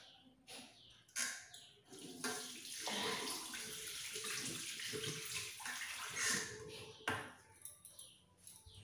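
Tap water running into a washbasin, with a few sudden, short, forceful nose blows over it as a person clears her nose at the sink.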